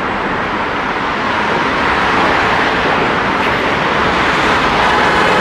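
Steady road traffic noise: cars driving past on the road alongside.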